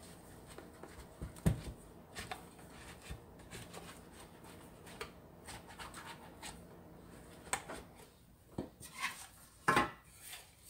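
Spatula scraping around the inside of a metal loaf pan to loosen a baked banana bread, with scattered small scrapes and knocks. Near the end come a couple of sharper knocks as the pan is lifted and tipped.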